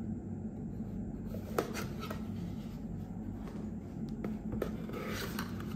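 A product box being opened by hand: a sharp click about a second and a half in, a couple of lighter taps later and a short scrape of cardboard near the end, over a steady low hum.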